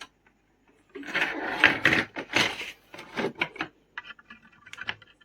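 Handling noise: irregular rubbing and scraping of a laptop and its parts being moved about, loudest in the middle, followed by a few light clicks near the end.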